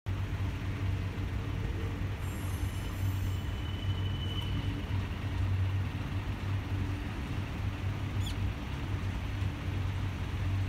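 Mizushima Rinkai Railway MRT300-series diesel railcar running as it rolls slowly through the freight yard, a steady low engine hum. A brief high squeal comes about two seconds in.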